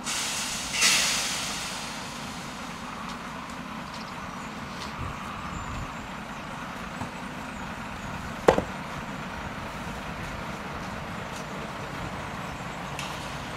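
Iveco truck engine idling steadily, with a loud hiss about a second in that fades away, and a single sharp clank of steel site-fence panels a little past halfway.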